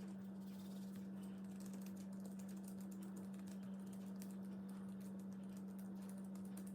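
Slime being pulled apart and pressed by hand, making soft, irregular little clicks and crackles, with a steady low hum underneath.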